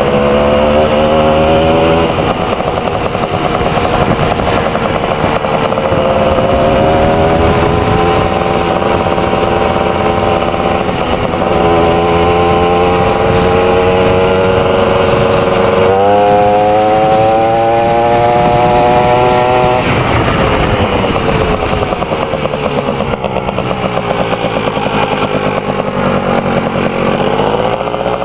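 Go-kart's small engine running hard, its pitch climbing again and again as the kart gathers speed, with a sharp fall about two-thirds of the way through and a brief dip near the end.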